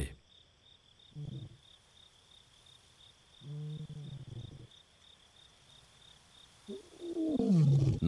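Male lion roaring in the distance: a short low call about a second in, a longer moaning call in the middle, and a louder call falling in pitch near the end. A steady high insect trill pulses underneath throughout.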